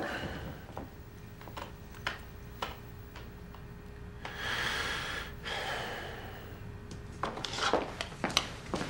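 Scattered light knocks and clicks of small objects being handled, with a long breathy exhale about four to six seconds in.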